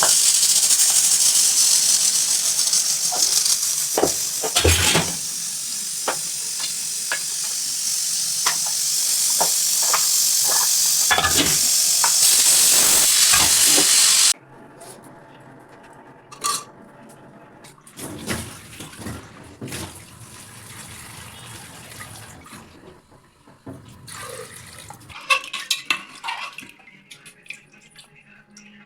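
Pressure cooker whistle venting steam: a loud steady hiss with irregular clicks and knocks, which stops suddenly about halfway through. After it come quieter scattered clinks of pots and utensils.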